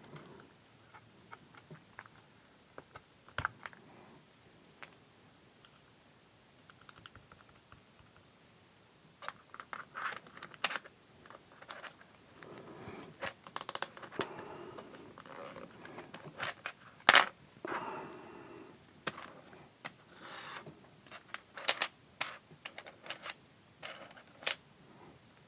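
Plastic keycaps being pulled off and pressed onto a mechanical keyboard's switches: scattered sharp clicks and snaps with light plastic clatter and rustling, busiest in the second half.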